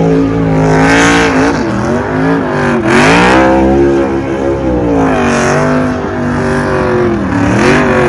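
NASCAR Cup stock cars' V8 engines at racing speed, several cars going by in turn. Each engine note drops in pitch as a car passes, and the sound swells with every pass, about every two seconds.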